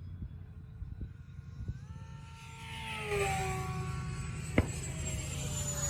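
Radio-controlled jet's ducted fan whining through a fast low pass: the pitch rises as it comes in and slides down as it goes by. One sharp click about two-thirds of the way through.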